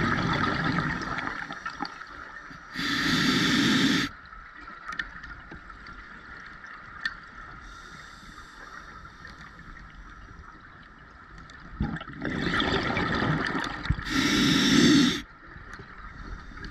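Scuba diver breathing through a regulator underwater. Each breath is a hissing inhalation followed by a louder rush of exhaled bubbles. There are two full breaths, one at the start and one about twelve seconds in, with a quieter stretch between them.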